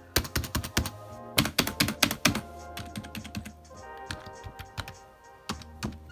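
Typing on a HyperX Alloy Core RGB membrane keyboard: quick, irregular clusters of key presses, with background music underneath.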